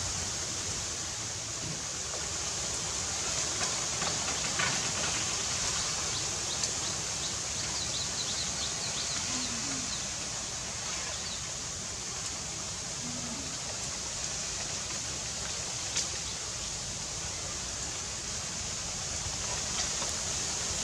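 Steady hiss-like outdoor ambience with no clear single source, a few faint high chirps about a third of the way through, and an occasional soft tick.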